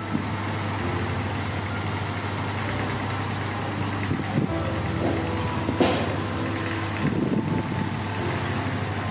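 A motor running with a steady low drone. Over it come a few short knocks and scrapes as garlic cloves are peeled with a small knife over a wooden chopping board.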